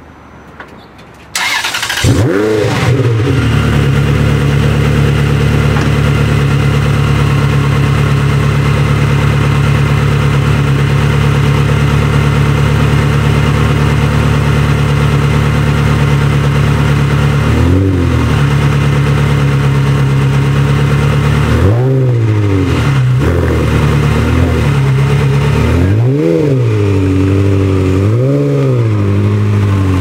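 Ferrari 360's V8 starting: it turns over briefly and catches about two seconds in with a quick flare, then settles into a steady fast idle. In the last dozen seconds it is blipped several times, short revs that rise and drop back to idle.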